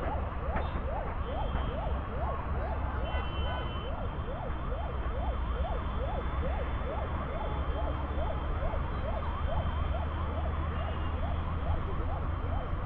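An emergency-vehicle siren wailing in a fast up-and-down yelp, about three sweeps a second, over a steady low rumble of traffic.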